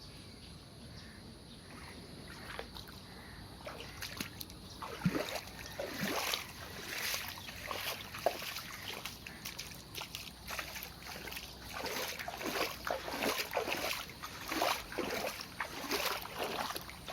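Floodwater splashing and sloshing in irregular, quick splashes that begin about four seconds in and come thicker toward the end.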